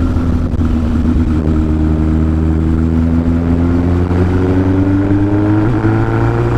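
Yamaha XS1100's inline-four engine, freshly fitted with a big-bore kit and new rings, pulling under load, its pitch rising steadily as the motorcycle accelerates: the engine is being loaded to build cylinder pressure and bed in the new rings.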